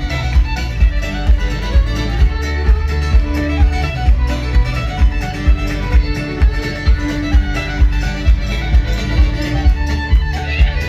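A live Celtic folk band plays an up-tempo tune through a PA: fiddle lead over strummed acoustic guitar, with a steady low beat about two times a second.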